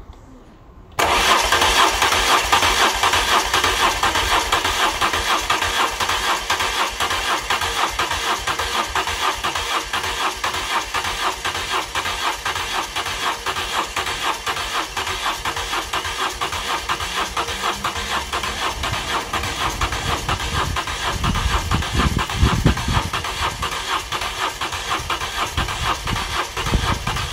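BMW R1100GS's air/oil-cooled boxer twin starting for the first time after four years laid up: it fires about a second in and keeps running steadily, with a heavier low note from about two-thirds of the way through.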